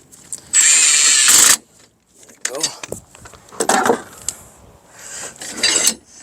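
Tool noise from working a hub puller onto a car's front wheel hub: a loud burst of even, hissing mechanical noise lasting about a second, then three shorter rasping bursts.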